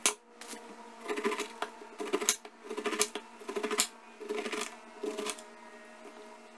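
Large kitchen knife cutting the rind off a whole pineapple: a run of crunchy cuts about every half second to second, with a few sharp clicks among them.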